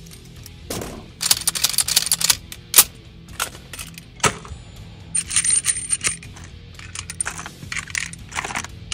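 Sharp metallic clicks and clinks of a rifle and its cartridges being handled, with a dense rattle about a second in and another around five seconds in.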